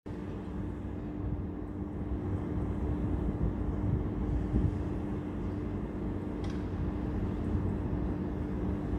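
ŽFBH class 441 electric locomotive with a freight train, still far off and approaching: a steady low rumble with a constant hum.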